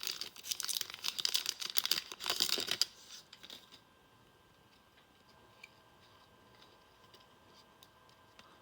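A trading-card pack's wrapper crinkling and tearing open for about three seconds, then stopping, leaving only a few faint clicks as the cards are handled.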